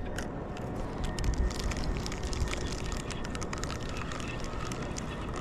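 A low rumbling noise with many short, sharp clicks and crackles scattered through it.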